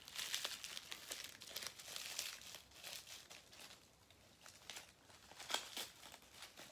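Brown packing paper crinkling and tearing as it is unwrapped by hand, in irregular bursts, with a quieter spell partway through and more crackling near the end.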